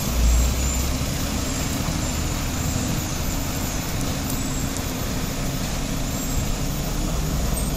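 Heavy trucks running in slow traffic close by: a steady low engine rumble over road noise.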